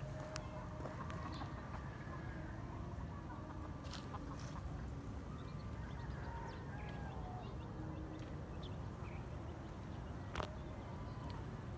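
Free-ranging chickens clucking now and then, short faint calls, over a steady low rumble, with a few sharp clicks.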